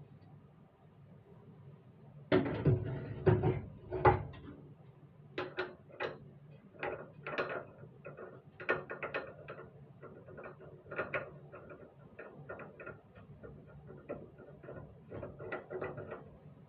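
Irregular clicking and clattering of hard objects being handled, with a cluster of louder knocks about two to four seconds in.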